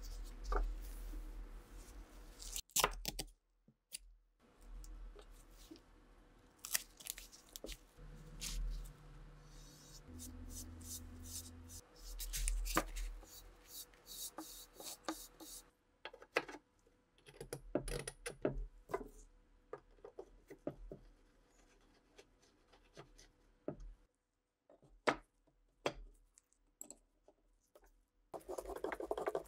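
Close-up work on a refinished wooden rifle stock and handguard on a wooden table: a paint brush brushing finish onto the wood, soft rubbing, and many sharp taps and knocks as the wooden parts are handled and set down.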